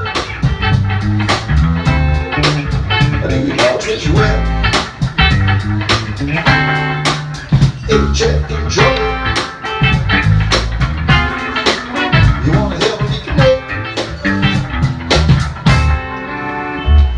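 A band playing a blues tune with electric guitar over a steady bass and drum beat.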